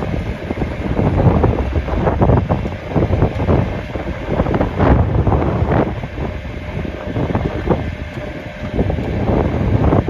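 Wind buffeting the microphone over the steady running of a heavy wrecker truck's engine, as its boom winch slowly pulls a tipped-over backhoe upright.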